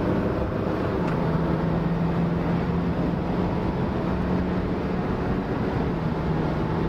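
Alfa Romeo Giulia 2.2 JTD four-cylinder turbodiesel heard from inside the cabin while driving: a steady engine drone over road and tyre noise, settling onto one even pitch about a second in.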